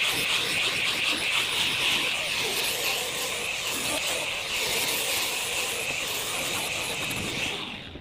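Handheld angle grinder with a flap disc, running steadily as it sands rough pallet-wood planks. Near the end it is switched off and the sound dies away.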